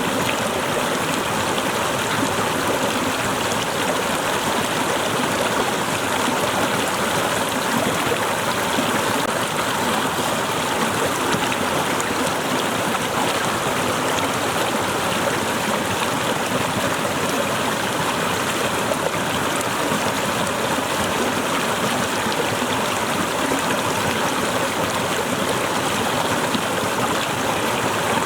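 Waterfall: water cascading in a steady, unbroken rush with a light gurgle.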